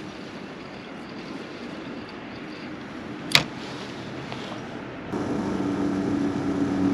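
Low wash of wind and water noise at the waterside, broken about three seconds in by one sharp click. About five seconds in, a steady low mechanical hum sets in and holds.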